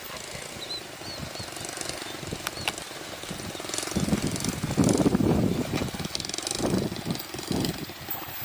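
Diesel-electric locomotive hauling a passenger train approaches with its engine throbbing steadily, getting louder and rougher about four seconds in as it draws near.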